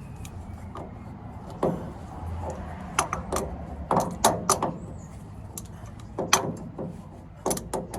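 Hand tools clicking and clanking against metal on the truck's steering linkage. The sharp clicks come irregularly and are thickest in the second half.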